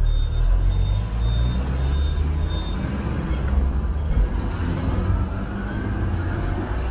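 Hong Kong double-decker electric tram running along its street track, heard from the upper deck: a steady low rumble of wheels and motors, with a whine that slowly rises in pitch in the second half as the tram picks up speed.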